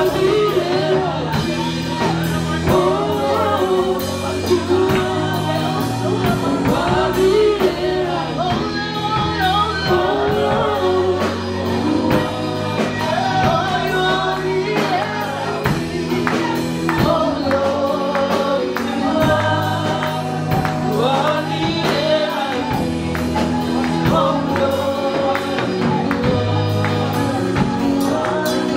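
Live gospel worship song: a group of singers on microphones over keyboard accompaniment, with a steady beat.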